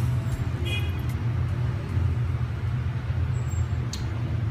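Street traffic of motorbikes and scooters riding past, a steady low engine rumble, with a short high beep less than a second in.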